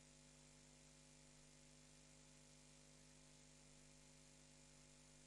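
Near silence: a faint, steady electrical hum with a light hiss.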